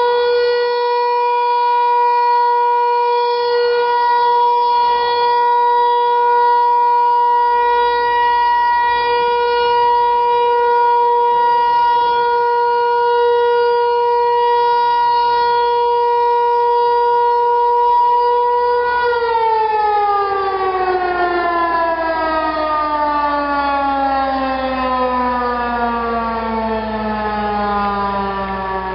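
Federal Signal Equinox electronic outdoor warning siren sounding a loud, steady tone during a test. About two-thirds of the way in, its pitch starts to slide steadily downward as the siren winds down.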